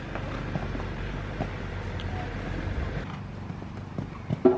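Horse cantering and jumping on arena sand, with soft, irregular hoofbeat thuds over a low rumble that eases after about three seconds. A short, louder sound with a pitched note comes near the end.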